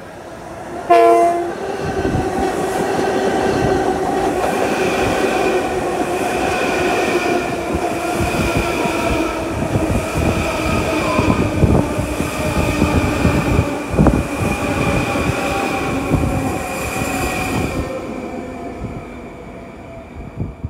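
Long Island Rail Road electric commuter train sounding a short horn blast about a second in, then passing close by: loud wheel-on-rail rumble with a steady high whine and occasional clicks, fading out near the end.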